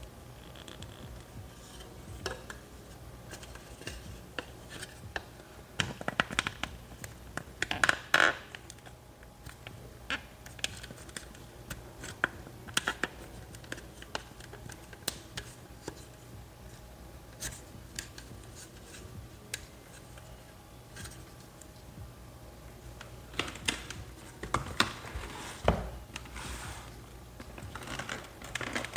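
An action figure and its parts being handled: scattered clicks, taps and rustling. There is a louder scraping rustle about eight seconds in, and another cluster of clicks near the end.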